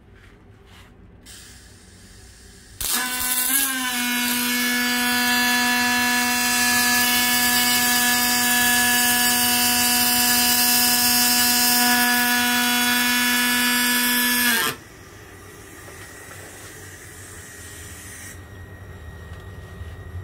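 Pulsed MIG welding arc from a Migatronic Sigma Select 300 in PowerArc Pulse mode, laying a fillet weld on mild steel with 1.0 mm wire at about 225 A. The arc strikes about three seconds in, runs as a steady, even buzz with a clear pitch (the pulse rate) for about twelve seconds, then cuts off suddenly.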